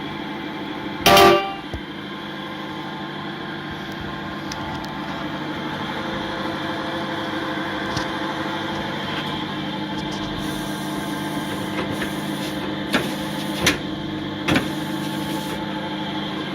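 Electric motor of an Adler 21-1 industrial sewing machine running with a steady hum. There is a brief, loud tone about a second in and a few short louder bursts near the end.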